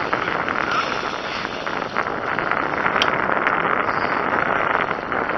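Steady rushing wind noise on the microphone aboard a boat, with a single sharp click about three seconds in.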